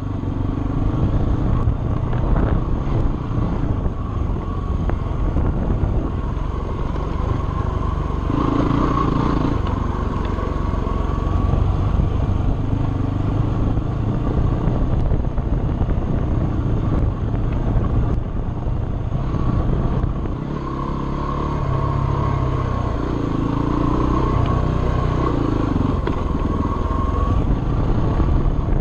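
Dirt bike engine running steadily under load on a trail ride, its pitch rising and falling as the throttle is worked. The revs drop briefly about two-thirds of the way through, then pick up again.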